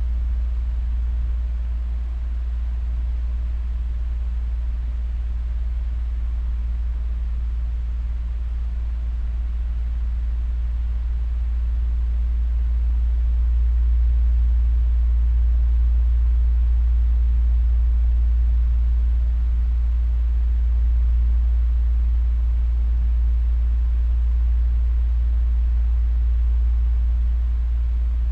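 Heavy building ventilation fan running steadily, a deep low rumble with a light airy hiss above it, growing slightly louder about twelve seconds in.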